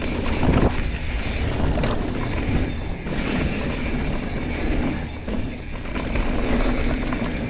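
Mountain bike riding downhill on a dirt trail: a steady rush of tyres on dirt and wind on the microphone, with the bike rattling and clattering over bumps.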